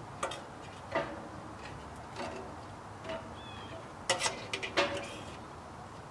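Irregular sharp knocks and clicks of split kindling being set into and shifted around the steel firebox of a Camp Chef Alpine wood stove while the fire is lit, with a quick cluster of knocks about four seconds in.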